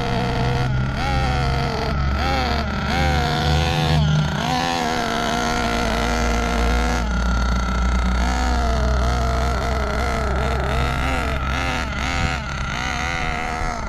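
Small O.S. nitro RC engine running in a buggy driven in slow circuits, its pitch rising and falling a little with the throttle. The engine is being broken in, run rich with a stream of smoke.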